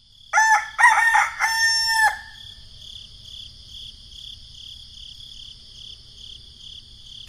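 A rooster crowing once: a broken cock-a-doodle-doo ending in a long held note. A faint high chirping then repeats about two to three times a second.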